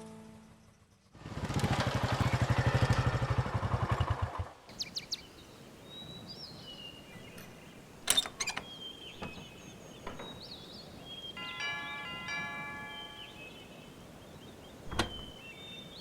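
A motor vehicle engine runs with a fast, rough pulse for about three seconds and then cuts off abruptly. After that, birds chirp over quiet outdoor background, with a few sharp clicks.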